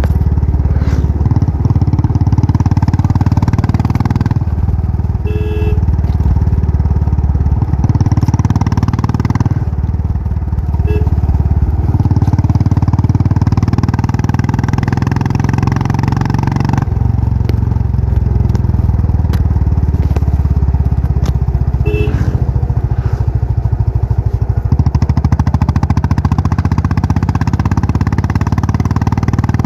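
Royal Enfield Classic 500's air-cooled single-cylinder engine running with a dense, even exhaust beat. The pitch and loudness step up and down every few seconds as the throttle changes.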